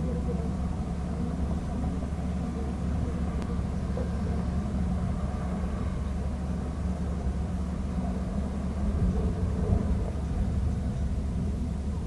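Steady low rumble on an outdoor wildlife camera's microphone, even in level throughout.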